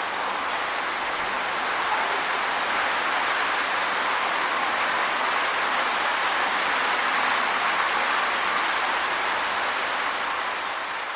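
Wind rustling through tree leaves: a steady, even rustle that swells slightly about two seconds in and begins to fade near the end.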